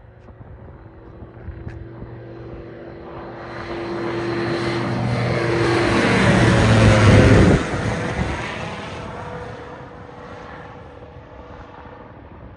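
Single-engine propeller airplane at takeoff power climbing out and passing low overhead. The engine and propeller hum builds to its loudest about seven seconds in, drops sharply in pitch as the plane passes, then fades as it flies away.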